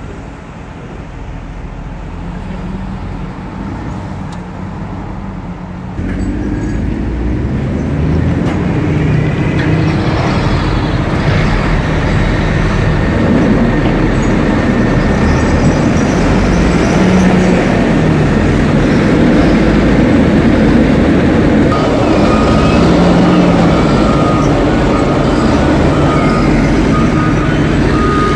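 Diesel engines of snow-clearing heavy machinery, a wheel loader and then a Caterpillar motor grader on chained tyres, running close by; the engine noise gets louder about six seconds in and stays loud. A high beeping tone joins over the last several seconds.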